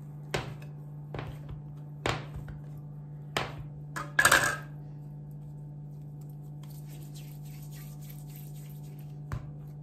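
Metal bench scraper cutting down through dough and clicking against a glass tabletop: a string of sharp clinks in the first four seconds, then a louder, longer scrape, and one more clink near the end. A steady low hum runs underneath.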